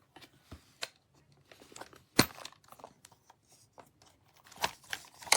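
Handling of a small plastic portable lock box and the items packed in it: scattered clicks and rustling, with one sharp click about two seconds in and a run of clicks near the end.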